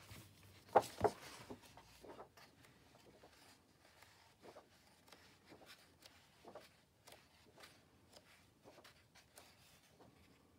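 Pages of an old large-format illustrated book being turned by hand, paper rustling softly, with two sharper taps about a second in.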